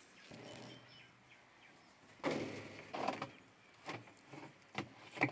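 Plastic inner spin drum of a hydro-extractor being handled and set into the dryer: scattered scrapes and a few light knocks and clicks.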